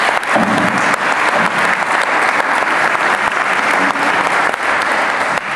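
Audience applauding, a dense, steady clapping that stops right at the end.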